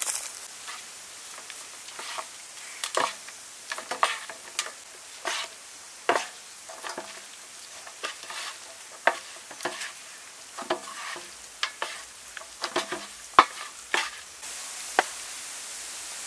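Bamboo chopsticks tossing seasoned instant noodles in a metal tray, tapping and scraping against the metal in irregular strokes, some with a brief ring. Near the end the tapping stops and a steady hiss remains.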